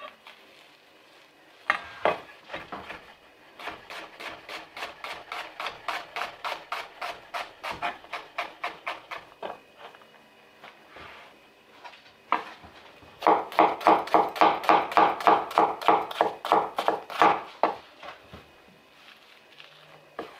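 Chef's knife chopping a red onion on a wooden cutting board: runs of quick knife strikes, about four or five a second, with a lull near the middle and the loudest run in the second half.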